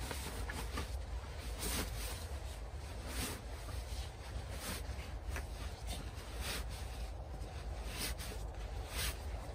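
Fabric rustling and swishing in irregular strokes as a sleeping bag is stuffed into a stuff sack, over a low steady rumble.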